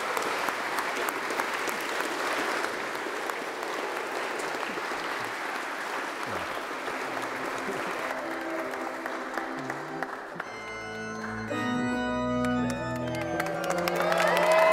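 Congregation applauding in a church. About eight seconds in, a church organ begins playing held chords, joined by deep bass notes a couple of seconds later; the music grows louder as the applause dies down, signalling the recessional.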